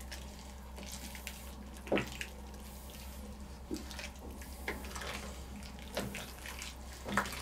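A spoon stirring a thick, simmering meat-and-mushroom stew in a stainless steel kettle. The liquid sloshes and bubbles, and there are a few light knocks of the spoon against the pot.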